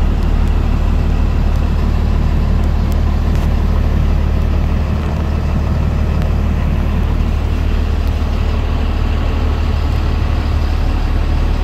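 Cummins ISB 6.7 inline-six diesel of a 2016 Freightliner M2 box truck idling steadily, heard from inside the cab as a loud, even low hum.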